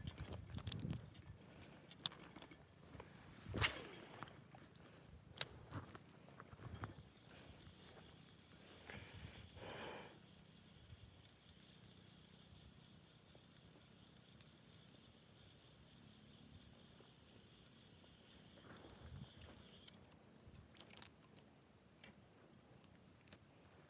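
An insect trilling steadily at a high pitch for about twelve seconds, with scattered light clicks and knocks before it starts and after it stops.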